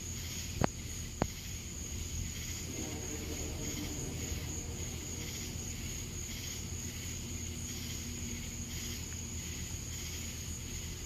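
Night chorus of crickets and other insects: a steady high-pitched trill over a pulsing buzz. Two sharp clicks come in the first second and a half, and a faint low pitched sound rises and fades in the middle.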